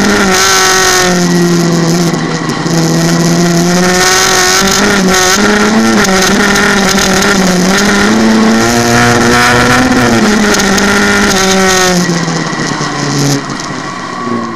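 VW Golf engine in a VW Beetle folk-race car, heard from inside the cabin, running hard at high revs with its pitch rising and falling as the driver works the throttle and gears. After about twelve seconds the revs and level drop as the driver lifts off.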